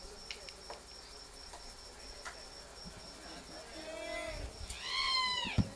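A faint, steady, high-pitched insect-like whine with a few soft clicks. Near the end, a loud, high-pitched drawn-out cry rises and then falls in pitch.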